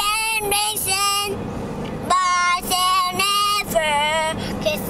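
A young boy singing in drawn-out, wavering notes, three phrases with short breaks between them, with the steady road noise of the moving car underneath.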